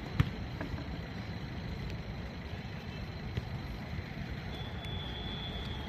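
Steady low outdoor rumble, with a single thud near the start, as of a football being kicked, and a faint steady high tone coming in near the end.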